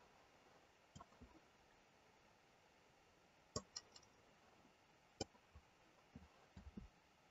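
Faint computer mouse clicks, about ten of them scattered irregularly, over near silence.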